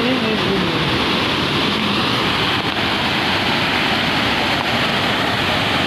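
Waterfall: falling water rushing as a loud, steady roar.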